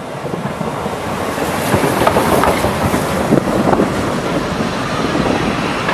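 Narrow-gauge steam train passing close: the locomotive goes by making heavy steam, then its coaches roll past with wheels clattering on the rails. The sound grows louder about a second in and is loudest in the middle.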